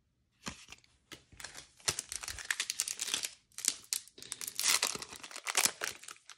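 Yu-Gi-Oh Maximum Gold booster pack's foil wrapper being torn open and crinkled: a dense run of sharp crackles starting about half a second in.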